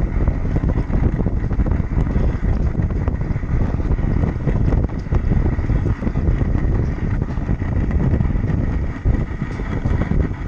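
Mountain-coaster sled running fast down its steel tube rails: a continuous rumble and rattle of the wheels on the track, mixed with wind buffeting the microphone and a faint steady high whine.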